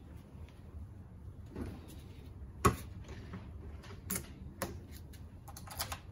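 Clicks and light knocks of hands working a motorcycle's key-operated fuel filler cap and ignition key: one sharp click about two and a half seconds in, then a few lighter ones and a quick double click near the end.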